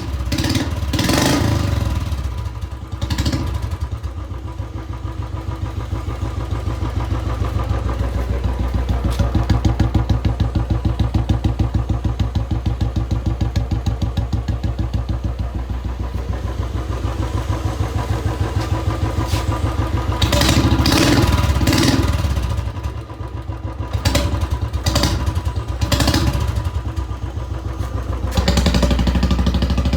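Royal Enfield Classic 350 single-cylinder engine running through a newly fitted long-bottle Punjab aftermarket silencer, with a steady rapid thumping exhaust. It is revved briefly near the start and several times in the last third.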